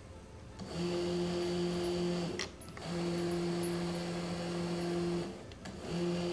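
Wheelchair DC gear motors run by radio control through a Sabertooth 2x32 motor controller: a steady electric hum that starts about a second in, stops briefly twice and starts again.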